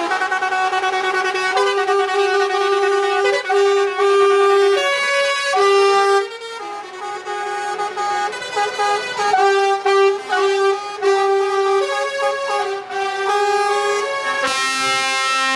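A musical horn playing a tune: brassy held notes stepping from pitch to pitch, several sounding together, with a short quieter stretch about six seconds in.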